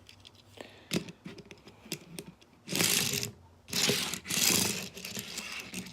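Plastic Transformers Titans Return Brainstorm toy in vehicle mode, handled and rolled on its small wheels across a surface: scattered plastic clicks and knocks, with three short rolling scrapes near the middle.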